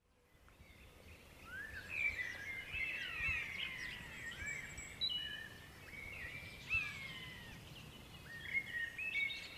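Woodland birdsong: several birds chirping and warbling over one another, fading in over the first couple of seconds, over a low steady rumble.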